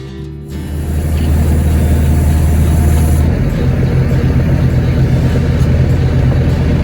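Diesel engine of a Volvo ECR88 compact excavator running steadily, its note stepping up to a higher engine speed about three seconds in.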